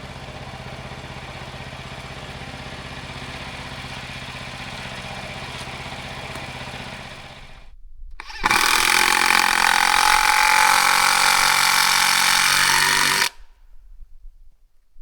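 A small engine running steadily, then after a brief break a much louder, high-pitched saw or power tool running for about five seconds before cutting off abruptly.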